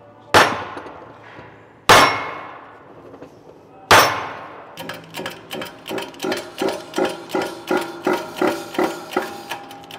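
A mallet strikes a new ring gear three heavy blows, seating it onto the differential carrier; each blow leaves the steel gear ringing, and they come about a second and a half to two seconds apart. A quicker run of lighter, ringing strikes follows in the second half.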